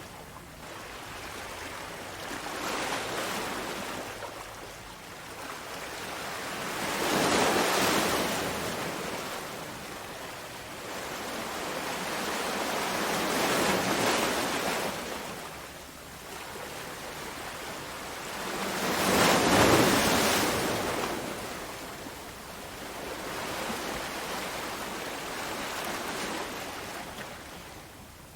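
Ocean surf: waves breaking and washing in, the rushing noise swelling and fading every five or six seconds, with the loudest surge about two-thirds of the way through.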